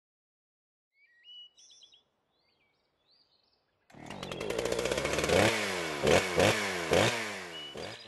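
A few faint bird chirps, then a chainsaw starts about four seconds in and runs, revving up and down four times as it cuts into trees.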